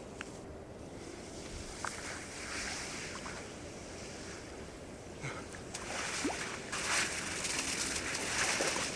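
Icy sea water splashing and lapping around a winter bather, growing louder over the last few seconds.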